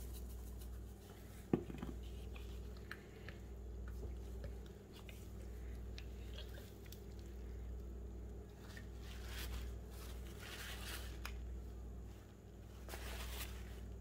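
Hands rubbing dry BBQ seasoning into the skin of a raw whole chicken: soft, faint squishing and rustling that comes and goes. There is one sharp knock about a second and a half in.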